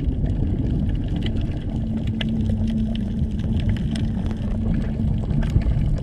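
Underwater ambience: a steady low rumble with a held low tone beneath it, scattered with many sharp crackling clicks.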